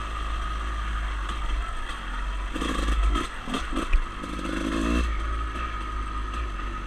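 Dirt bike engine running under way on a trail, with rattling and scraping over rough ground. The engine note swells a little about halfway through, and there is a single sharp knock about four seconds in.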